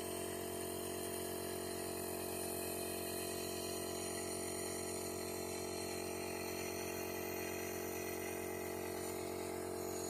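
Electric nebulizer compressor running with a steady, even buzzing hum.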